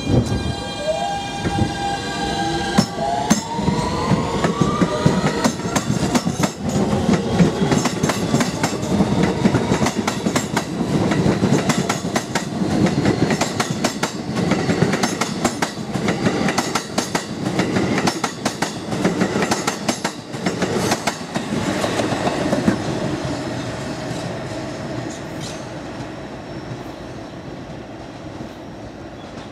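Siemens-propulsion R160B subway train pulling out and accelerating. The traction inverters give a steady whine that rises in pitch a few seconds in, over the clack of wheels crossing rail joints and switches. The sound fades as the train draws away.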